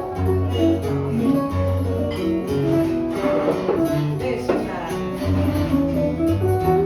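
Plucked acoustic guitar music with a steady bass line, the instrumental opening of a Portuguese love song before the singing begins.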